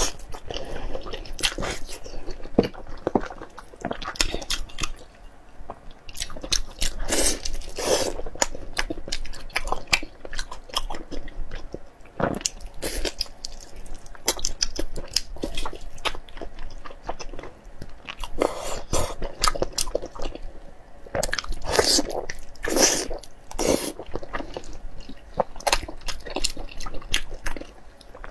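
Close-miked eating: irregular wet bites and chewing into saucy braised meat held in the hands, with some crunching, louder clusters of bites about a third of the way in and again near three-quarters through.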